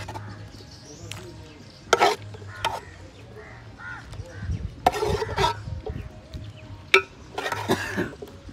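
Cooking utensils knocking and scraping against a pot: a few sharp clinks spread out a second or two apart, with scraping between them.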